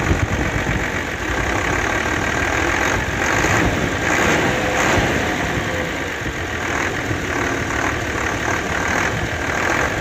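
Nissan FE6 inline-six diesel truck engine idling steadily, heard close up in the open engine bay. It is being probed for piston-ring knock because of heavy crankcase blow-by, and the mechanic hears only a very slight change in sound at cylinder number one.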